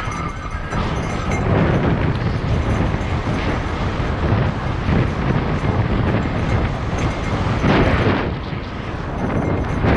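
Mountain bike rolling fast down a dirt singletrack, heard from a camera on the bike or rider: steady rushing wind noise on the microphone mixed with tyres crunching over dirt and the bike rattling over bumps. A few louder jolts come through along the way.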